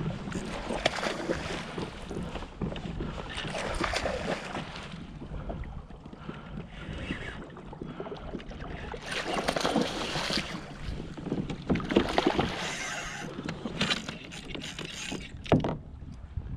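Water sloshing and splashing around a plastic kayak hull in repeated surges, with rod and reel handling noise, while a hooked fish is fought from the kayak. A sharp knock comes near the end.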